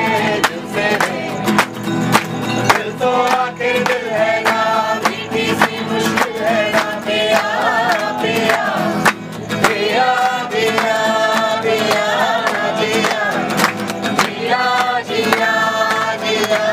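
Live acoustic guitar strummed in a steady rhythm while voices sing along together.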